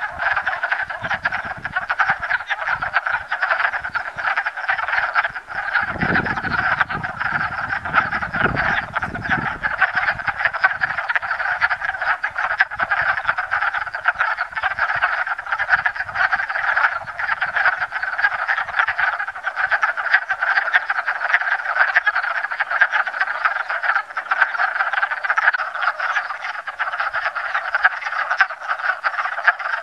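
A breeding chorus of many wood frogs chattering at once in a pond, a dense, continuous mass of overlapping short calls.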